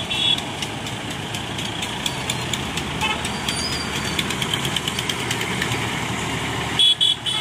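Road traffic crossing a level crossing: lorry and motorcycle engines running, with many short clicks and knocks. A vehicle horn beeps briefly at the start and honks several quick times, loudest, near the end.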